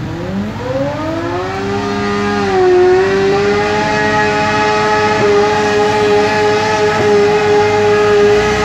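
Lawnmower motor spinning up to speed: a rising whine that levels off after about three seconds into a steady, even-pitched running note.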